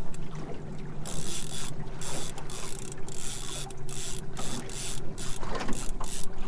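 Spinning reel being wound against a hooked fish, its gears ticking and whirring unevenly, over the steady low hum of the tinny's outboard motor.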